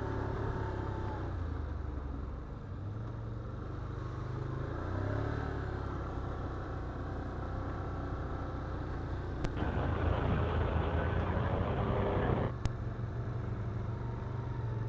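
An ATV engine running at low trail speed, its pitch rising and falling with the throttle. A rougher, noisier stretch lasts about three seconds in the latter half.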